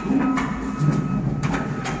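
Heavy machinery running with a low rumble, broken by four sharp metallic clanks and knocks.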